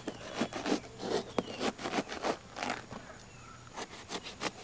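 Knife sawing back and forth through the thick rind of a large pomelo: a run of short scraping strokes, about three a second, with a brief pause about three seconds in.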